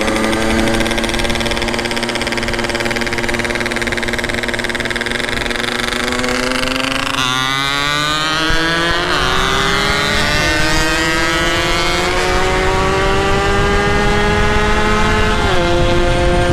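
Motorcycle engine running at a steady pitch for about seven seconds, then revving up as it accelerates, with a sudden drop in pitch at each gear change, the last near the end.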